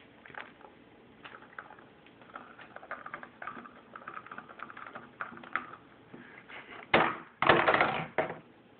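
African grey parrot's beak tapping and pecking at a water bottle's plastic lid in quick small clicks. Near the end the bottle tips over onto the wooden table with a loud knock and a short clatter.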